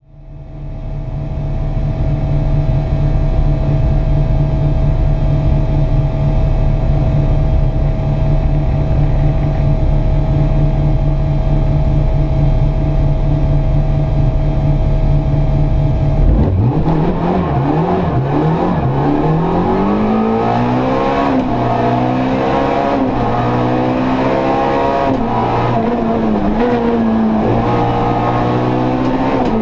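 The Opel Kadett E rally car's 1.6 16V engine, heard inside the stripped cabin. It runs at one steady pitch while the car waits at the start line. About sixteen seconds in it launches, and the revs climb and drop again and again as it accelerates up through the gears.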